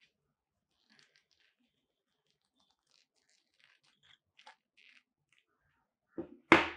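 Leather-gloved hands handling a plastic Panasonic BQ-CC55 battery charger loaded with Eneloop AA cells: faint scattered rustles and light plastic taps, then one loud, short rustle near the end as a glove grips it again.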